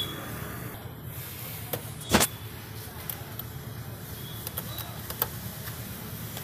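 Light metallic clicks and clinks from a Phillips screwdriver and hand tools as the screws of a moped's side panel are worked, with one louder clank about two seconds in. A steady low rumble runs underneath.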